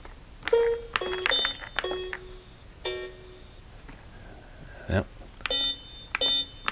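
Electronic keypad beeps from a light-up puzzle box: a run of short chime-like tones, each set off by a button press with a small click, in two bursts with a pause in between. A sharper click comes about five seconds in.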